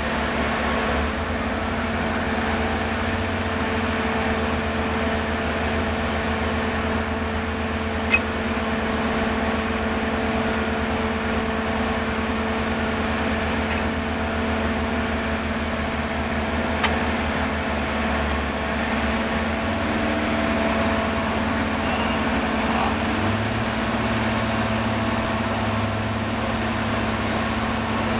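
Caisson core drilling rig running steadily, its engine and drive giving an even mechanical hum with a low rumble underneath. Two brief sharp clicks, about 8 and 17 seconds in.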